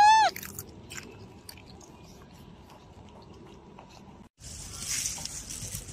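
A baby macaque gives one short, high cry that rises and falls, right at the start. Faint scattered clicks follow. The sound cuts out abruptly about four seconds in and comes back as a hissing background.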